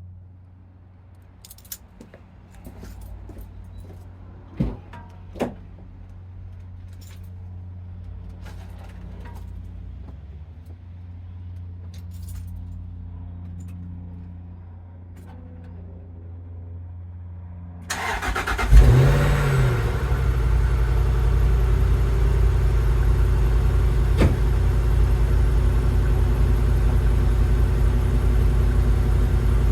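Unmodified 2005 Jaguar XK8's 4.2 V8 being started: first some clicks and two sharp thumps, then about eighteen seconds in the starter cranks and the engine catches with a brief flare in revs. It settles into a steady idle through the stock exhaust.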